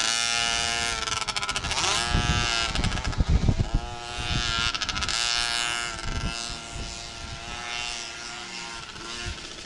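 Two-stroke engine of a Cobra youth motocross bike revving up and down as it is ridden around a dirt track, its pitch rising and falling with the throttle and gears. There are low thumps in the middle, and it grows quieter over the last few seconds.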